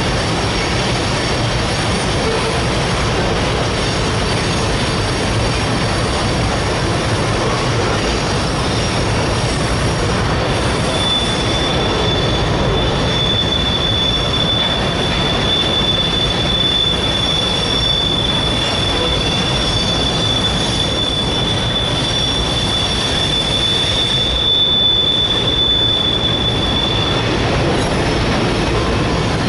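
Freight cars of a CSX freight train rolling past over an elevated steel viaduct, a steady loud rumble and clatter of wheels on rail. About a third of the way in, a single high, steady squeal from the passing cars starts. It lasts about sixteen seconds and stops shortly before the end.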